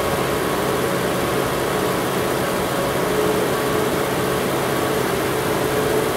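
Petrol car engine running steadily at raised revs, held at about 2000 rpm for the fast-idle stage of an exhaust emissions test.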